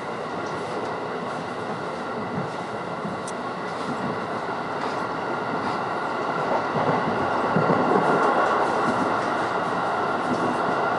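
Running noise of a JR West electric train heard from inside the carriage as it pulls away from the station and gathers speed. The rumble grows louder from about halfway through.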